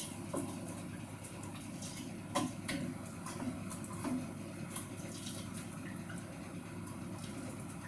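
A spoon stirring spiced ingredients in a saucepan on the hob: irregular scrapes and light knocks against the pan, over a steady low hiss like a gentle sizzle.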